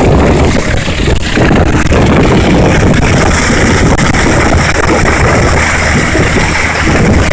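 A boat's motor running steadily with the boat under way, with wind buffeting the microphone.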